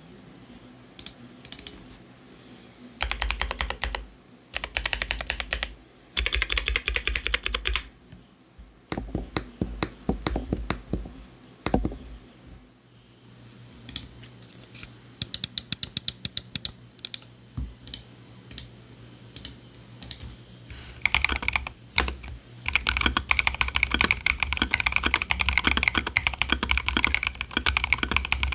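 Typing on a Keychron Q3 Pro SE mechanical keyboard with stock Keychron K Pro Banana switches and PBT keycaps, in bursts of rapid keystrokes with pauses. About 13 seconds in, it changes to typing on a tape-modded Keychron Q1 with Wuque WS Quartz linear switches, which ends in a long run of fast typing.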